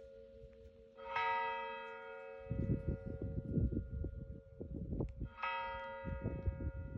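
Monastery church bell struck twice, about four seconds apart, each strike ringing out over the bell's steady lingering hum. Through the second half, loud irregular low rumbling and knocking sits under the ringing.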